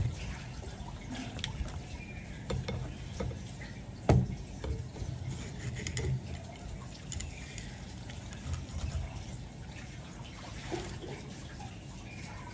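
Water sloshing and dripping during kitchen work, with scattered small clicks and one sharper knock about four seconds in.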